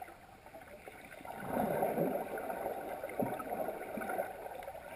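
Muffled, murky water noise recorded by a GoPro lying underwater at the bottom of a lake. It swells about a second and a half in, with a couple of dull knocks later on.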